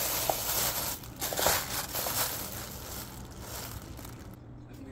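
Plastic bag and packaging crinkling and rustling as hands handle a packet of silverfish, loudest in the first couple of seconds and then tapering off.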